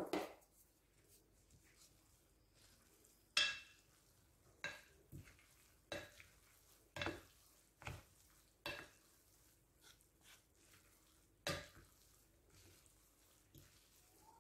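Two wooden spoons tossing cooked vermicelli noodles in a textured glass bowl, with irregular clinks and knocks of wood on glass roughly once a second. There is a heavier thump at the very start.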